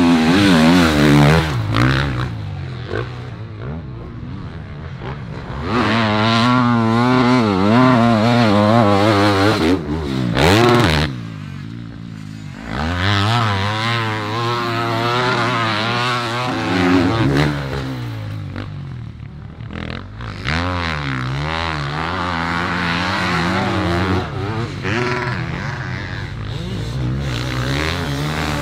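Motocross bikes riding a sand track, their engines revving up and down hard through corners and shifts. Several bikes pass in turn, getting louder and fading again, with short dips between passes.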